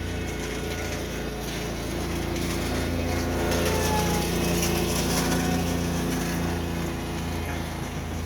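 A lawn mower's small petrol engine running steadily, with an electric RC airplane's motor whining past low overhead, loudest around the middle.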